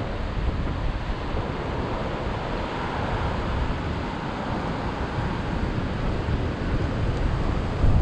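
Strong wind blowing in gusts, buffeting the microphone with a low rumble; a louder gust hits the microphone near the end.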